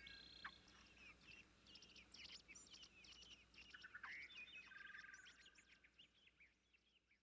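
Faint outdoor birdsong: many quick, varied chirps and twitters from small songbirds, with a short warbled phrase about four seconds in, the whole fading out near the end.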